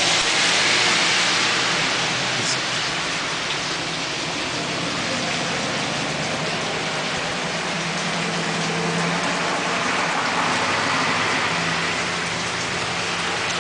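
Steady rain falling, a dense even hiss of drops hitting surfaces.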